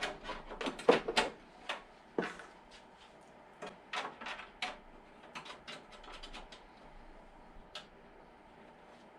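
Irregular clicks and knocks of computer parts being handled during a PC build, loudest and most frequent in the first two seconds, then sparser.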